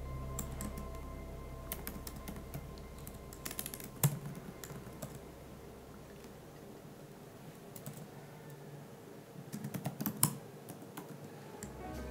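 Typing on a computer keyboard: irregular bursts of key clicks, the sharpest about four seconds in and another flurry near ten seconds.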